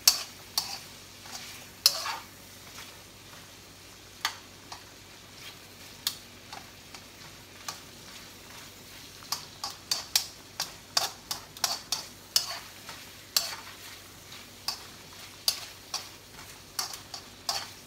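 Shrimp sizzling softly in butter in a wok while metal tongs click and scrape against the pan as they turn them. The clicks come now and then at first, then quicker, about two a second, in the second half.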